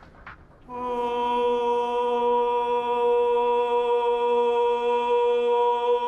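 A man's singing voice holding one long, steady note that begins about a second in, lingering in the reverberant stone dome of a baptistery.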